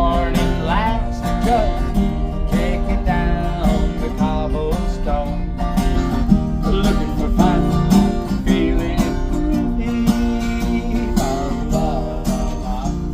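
Country-style music with acoustic guitar played and sung.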